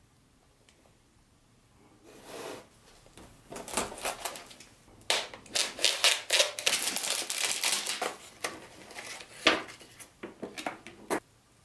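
Unpacking a model train set by hand: packaging rustling, with scattered clicks and knocks as pieces are handled, starting about two seconds in and busiest in the middle.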